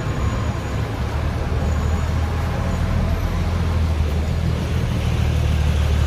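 Steady low rumble of road traffic, a vehicle engine running close by, building slightly over the first second.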